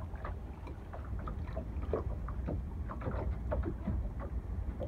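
High wind and waves rocking a boat: a steady low rumble of wind, with frequent small irregular knocks, creaks and water sloshing as the hull is pushed back and forth.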